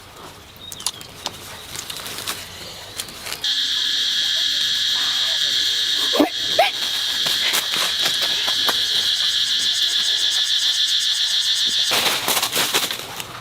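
Cicada calling: a steady, high, shrill buzz that starts abruptly about three and a half seconds in and cuts off sharply near the end. A few light clicks are scattered over it.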